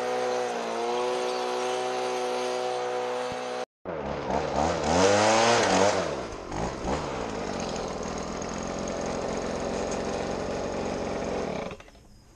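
Small gasoline engine running steadily, then revving up and back down once, then running steadily again before going quiet near the end, with an abrupt break just before 4 s.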